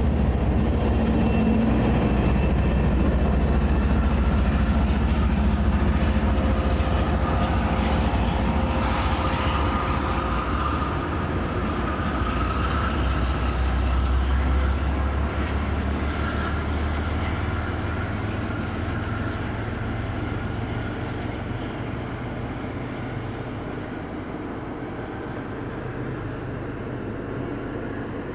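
MBTA commuter rail train running with a heavy, steady rumble, with faint tones above it. Over the second half the rumble fades as the train draws away.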